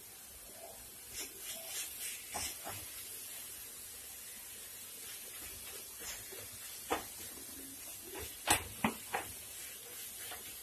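Wooden spatula stirring grated bottle gourd as it fries in ghee in a kadhai: soft scraping over a faint frying hiss, broken by sharp taps of the spatula against the pan, one about two-thirds of the way in and three in quick succession near the end.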